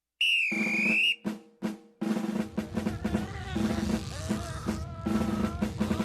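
A short high whistle-like tone that dips and rises, then three quick separate hits, then drumming with rapid repeated strikes like a drum roll.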